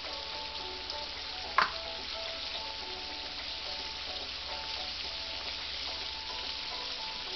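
Pork chops frying in hot grease in a cast-iron skillet, a steady sizzle, with one sharp tap about one and a half seconds in.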